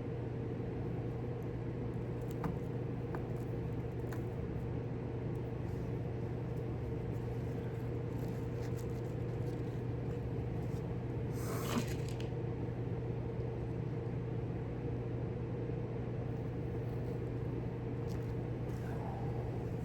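A steady low hum runs throughout, with a few faint small clicks from hand work and one short scraping rustle a little over halfway through.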